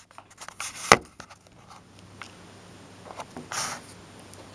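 Small clicks and rustles of fingers handling a foil-wrapped Kinder Surprise chocolate egg, with a sharp tap about a second in and a short rustle past the middle.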